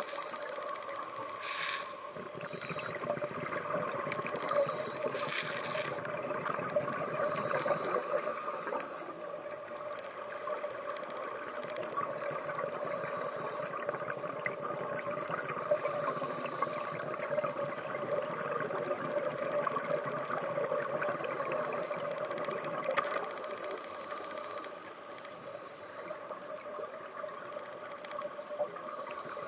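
Underwater ambience: a steady droning hum, with short hissing bursts every few seconds.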